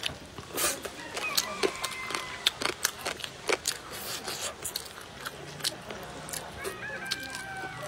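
Close-up mouth sounds of eating braised fish and rice: irregular wet smacks and clicks of chewing, with light taps of chopsticks.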